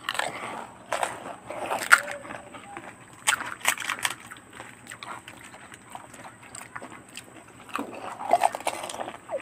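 Fuchka (pani puri) being eaten fast: irregular crackles and crunches of the crisp puri shells being cracked open and bitten, with wet slurping and chewing of the sour-water filling.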